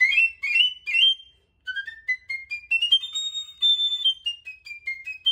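Piccolo playing a fast orchestral passage: a few quick flourishes, a short pause, then a scale rising step by step to a held high B and stepping back down.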